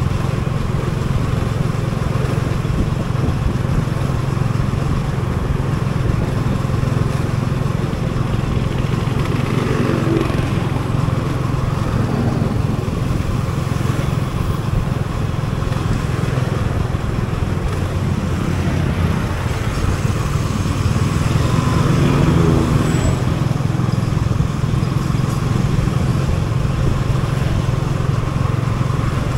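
Motorcycle engine running steadily while being ridden, its low hum unbroken throughout.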